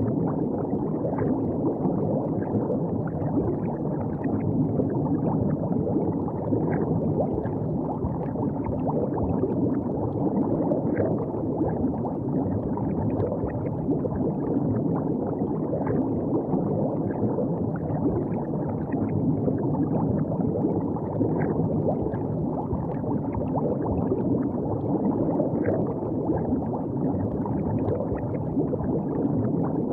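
River water flowing steadily, with no change in level.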